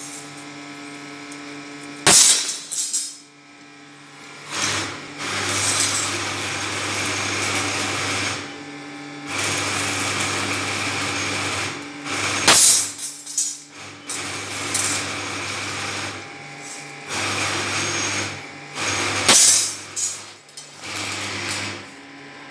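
Heavy hammer blows on steel held over a small anvil, three loud ringing strikes a few seconds apart, each followed by a few lighter knocks. Between the blows a machine runs in stretches of a few seconds over a steady low hum.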